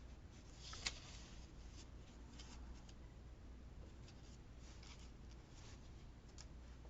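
Faint rustling and light scraping of paper cut-outs being handled and laid on a planner page, with one sharp click about a second in.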